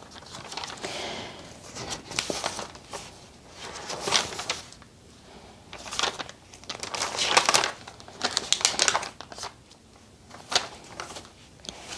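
Pages of a thick paper journal, kept in a traveler's notebook cover, being turned one after another: a series of papery rustles and swishes every second or two.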